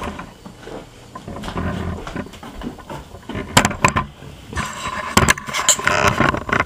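Handling noise from a handheld camera being picked up and carried: rubbing and rustling on the microphone, with several sharp knocks in the second half.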